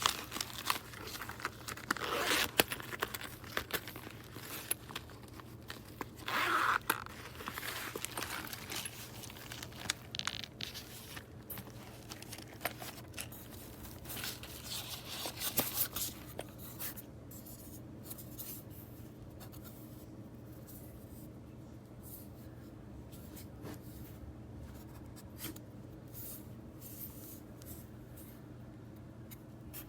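Handling noise from makeup items being moved around and packed into a hard-shell makeup train case: scattered clicks, rustling and scraping. It dies down after about 17 seconds, leaving a faint steady hum.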